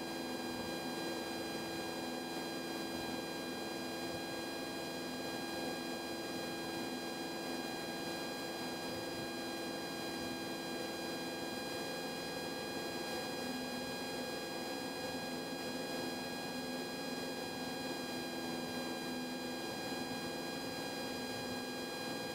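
Steady drone of a Cessna 172's piston engine and propeller in flight, heard from inside the cabin as a constant hum.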